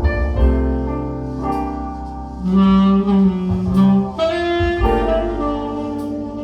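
Recorded music played back through Altec Lansing Valencia 846B loudspeakers with dual SVS subwoofers: a melodic lead line of held notes over strong deep bass.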